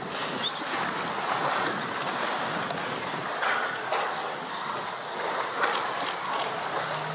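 Sea water splashing and churning as a herd of walruses swims together, over a steady wash of waves and wind, with a few sharper splashes near the end.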